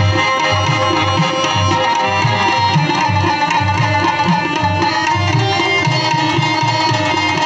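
Pashto ghazal music: tabla playing a steady rhythm of low strokes under the sustained tones of a harmonium, with a rabab.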